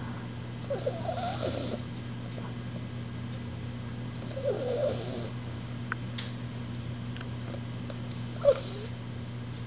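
Olde English Bulldogge puppy snoring in its sleep: three snoring breaths about three and a half seconds apart, each with a squeaky, wavering nasal note, the last short and loudest.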